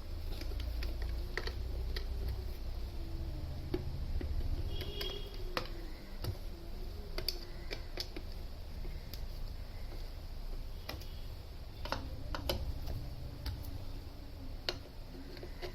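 Scattered light clicks and taps of screws and a hand tool being worked on a ceiling fan's metal housing, over a low steady hum.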